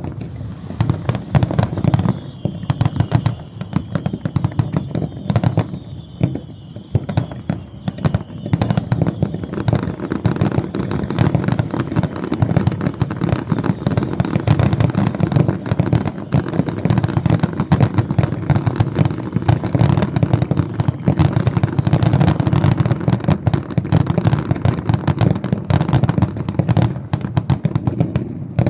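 Fireworks display: a rapid, unbroken run of bangs and crackling with deep booms underneath. A thin high whistle sounds for several seconds near the start, and from about ten seconds in the bursts come so thick they merge into a continuous crackle.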